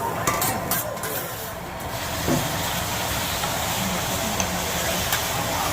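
Steady hissing sizzle of food cooking on a hibachi flat-top griddle, with a few short clicks in the first two seconds.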